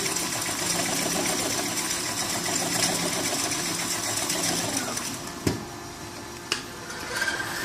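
Auger filling line running, a steady mechanical whir from the auger filler and conveyor drives, which dies down about five seconds in, followed by two sharp clicks about a second apart.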